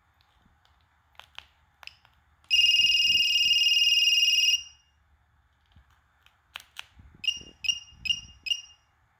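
Kyocera 2235 cell phone beeping: a few clicks, then a steady high beep lasting about two seconds, then two more clicks and four short beeps at the same pitch, about two a second.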